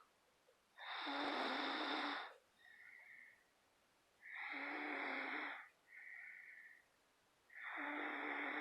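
A person snoring: three loud snores about three seconds apart, each lasting about a second and a half, with a shorter, quieter, higher-pitched sound after each of the first two.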